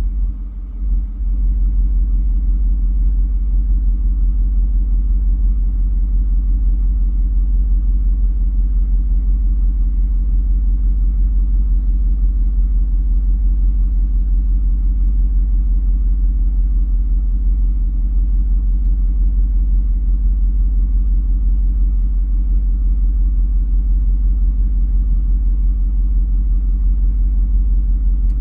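A vehicle's engine idling, a steady low rumble heard from inside the cab.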